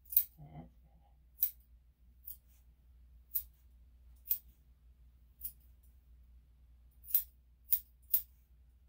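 Grooming scissors snipping through a dog's hair: about nine short, sharp snips at an uneven pace, with a quick cluster of three near the end.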